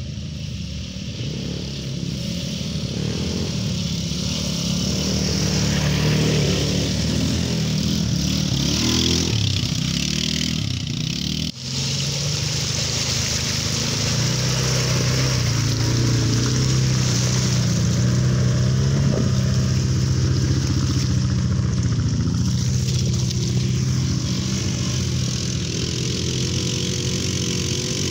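Small ATV engines of up to 250 cc running and revving, their pitch rising and falling with the throttle. A brief drop about eleven and a half seconds in, where the recording cuts.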